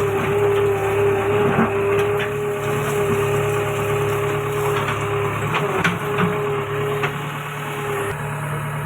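Construction machinery engine running steadily at a drainage pipe-laying site. A steady whine over the engine hum fades out near the end, and a few sharp knocks come through.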